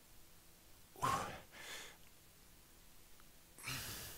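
A man breathing audibly during exercise: a sharp exhale about a second in, a softer breath just after it, and another breath near the end.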